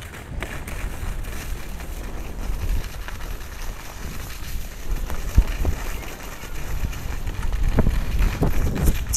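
Wind buffeting an action camera's microphone while skiing down a groomed slope, with the skis hissing over the snow. A few sharp knocks come in the second half.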